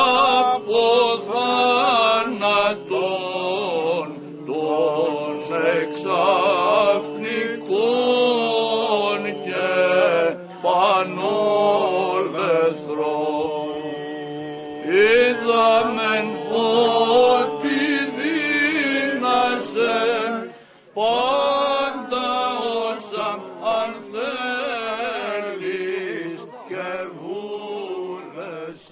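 Byzantine chant sung by male chanters: a slow, ornamented melody over a steady held drone note (ison), with a short pause about two-thirds of the way through.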